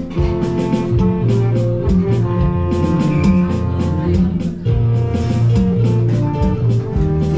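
Live band music: an electric bass and keyboard playing a quick tune over a steady beat.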